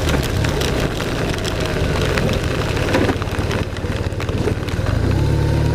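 BMW R1200 RT-P's flat-twin engine running in heavy rain, with raindrops spattering sharply on the camera and bike. The engine note weakens through the middle, then a steady low engine hum settles in near the end.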